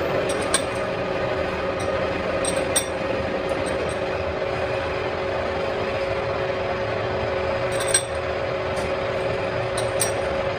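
Metal lathe running with a steady hum, while its handles and fittings give a few sharp metallic clinks, the loudest about eight seconds in.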